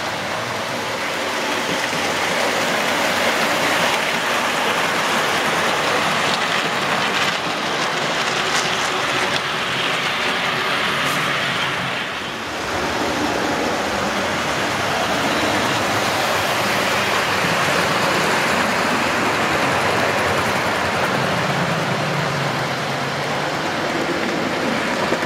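OO gauge model trains running on the layout's track: a steady rolling noise of wheels on rail and small electric motors, briefly dipping about halfway through.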